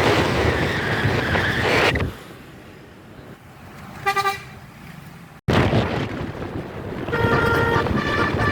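Telolet musical bus horn (Basuri type): a loud rush of noise for the first two seconds, then a single short horn toot about four seconds in, and from about seven seconds a string of short notes at changing pitches playing a tune.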